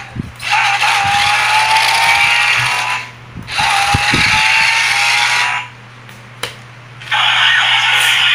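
Remote-control transforming car robot toy's small electric motors whirring in three bursts of two to three seconds each, each with a thin whine that rises slightly in pitch. The last burst comes as the car starts unfolding into a robot.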